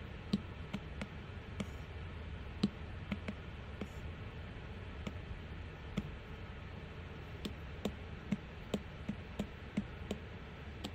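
Apple Pencil tip tapping on an iPad's glass screen: light, sharp taps at irregular spacing, coming more often in the second half, over a faint steady background hum.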